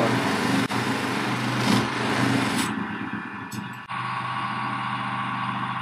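Electric polishing motor running steadily with a knife blade pressed against its spinning polishing wheel, a final polish with a fine paste. The blade rubs with a hissing noise for the first few seconds, which eases off about three seconds in, leaving the motor's steady hum.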